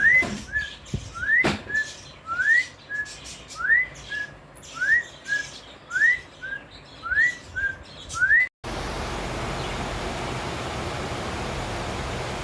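A bird repeating a two-note call about eight times, roughly once a second: a quick rising whistle followed by a short, lower, level note. About two-thirds of the way through it cuts off suddenly to a steady hiss of rain.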